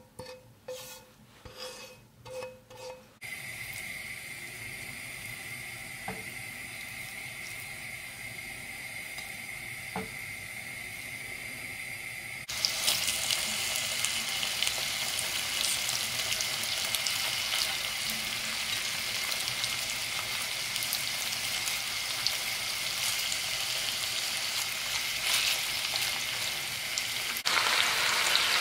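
Chunks of raw pork sizzling in hot oil in a frying pan, a steady hiss that gets louder about twelve seconds in and again near the end. In the first three seconds a spatula scrapes cooked carrot and onion out of the pan in a few short strokes.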